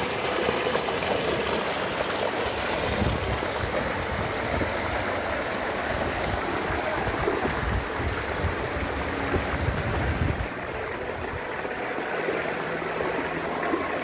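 Steady rush of water pouring over rocks in a stream cascade and waterfall. The low rumble underneath drops away about ten seconds in.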